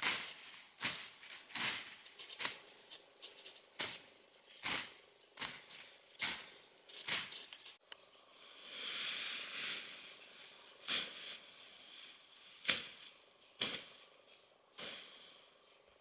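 Machete or knife cutting through ferns and undergrowth: short swishing strokes about one a second, with a longer rustle of leaves about eight to ten seconds in.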